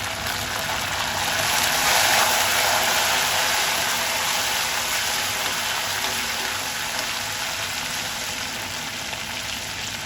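Handful of curry leaves sizzling in hot oil in a pan of tamarind-rice tempering (mustard seeds, chana dal, dried red chillies, peanuts). The sizzle swells to its loudest about two seconds in, then slowly dies down.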